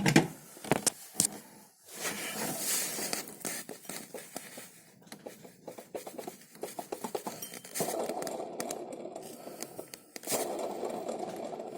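Water pump pulley spun by hand with the drive belt off, its bearing giving a rough droning whir in two spins in the second half: worn bearings, the pump needs replacing. Handling clicks and scratching before the spins.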